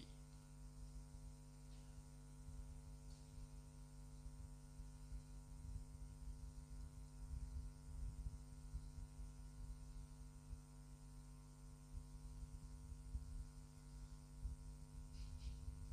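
Faint, steady electrical hum with a low rumble underneath: background noise from the recording setup, with no other sound.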